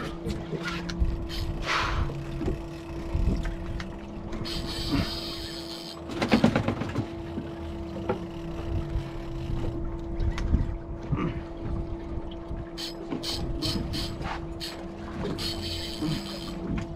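Boat's twin outboard engines idling with a steady hum under wind and water noise, while a spinning reel is cranked against a heavy fish; scattered clicks and knocks from the rod and reel, thicker near the end.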